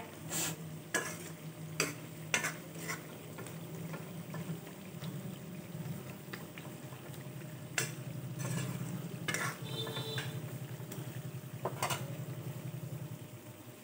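Metal ladle stirring a thick chicken gizzard, liver and potato curry in an aluminium kadai, with scattered clinks and scrapes against the pan over a low sizzle from the simmering curry.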